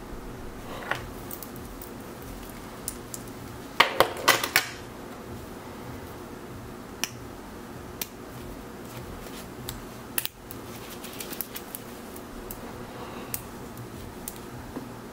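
Small sharp clicks and taps as a stainless steel watch and its presentation box are handled, with a tight cluster of several clicks about four seconds in and single clicks scattered through the rest, over a steady low hiss.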